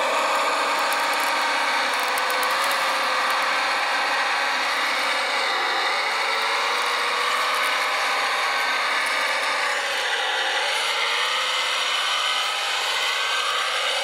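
Electric drive motors of radio-controlled model construction machines whining steadily, the pitch wavering up and down as they are worked.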